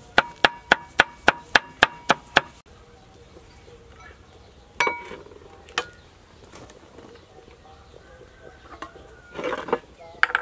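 Kitchen knife chopping on a cutting board in a quick, even rhythm of about three to four strokes a second, each stroke ringing briefly. It stops about two and a half seconds in, followed by a few separate clinks and knocks of kitchen utensils.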